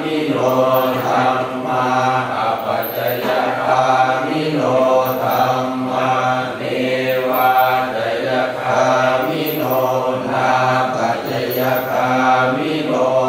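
Buddhist prayer chanting (suat mon): voices reciting rhythmically on a near-steady low pitch, in short phrases that follow one another without pause.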